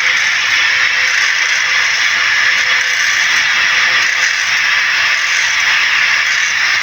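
Stick (SMAW) welding arc crackling steadily as an electrode burns during a weld pass.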